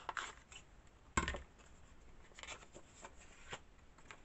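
Hands handling paper and cardstock on a cutting mat: light rustles and ticks, with one sharp knock about a second in as the scissors are set down on the mat.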